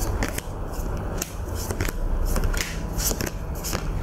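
Playing cards being handled and laid down: an irregular run of sharp clicks and snaps over a steady low hum.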